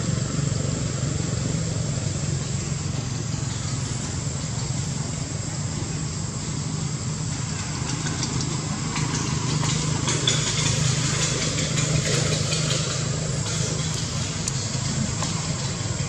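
A motor running steadily at idle: an even low hum.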